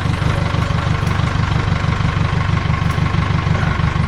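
Tractor engine idling steadily, with an even low pulsing rumble.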